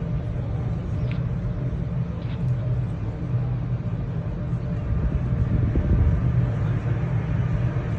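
Steady low rumble of a ship under way, with a constant engine hum running through it.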